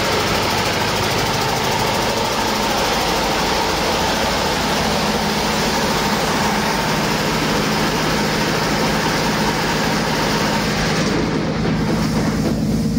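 2016 Detroit Diesel DD15 heavy-duty inline-six diesel engine running steadily on a test stand, a loud, even diesel clatter and hum that the seller says runs excellent. About eleven seconds in, the higher hiss lessens while the low engine note carries on unchanged.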